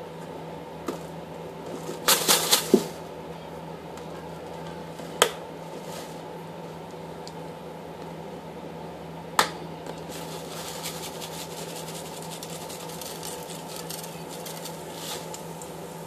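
Sharp clicks and knocks of a seasoning bottle being handled, a quick cluster about two seconds in and single clicks a few seconds apart, over a steady low hum. From about ten seconds in comes a faint, fine crackle as steak seasoning is dispensed from the bottle.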